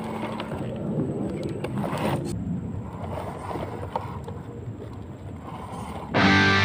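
A 1/10-scale RGT EX86100 RC rock crawler's brushed 550 electric motor and geared drivetrain running at low speed as it crawls over loose rocks, with the tyres scrabbling on stone. Guitar music cuts back in loudly near the end.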